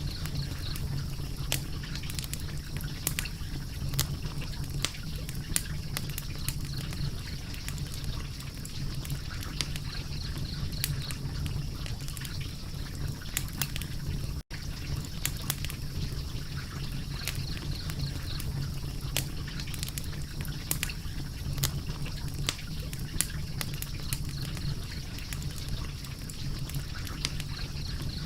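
Crackling fire: irregular sharp pops and snaps over a steady low rumble, with a momentary silent gap about halfway through.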